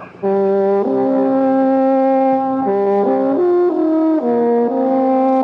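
Music bridge between scenes of a radio drama: a slow melody of held notes that steps to a new pitch every half second to a second.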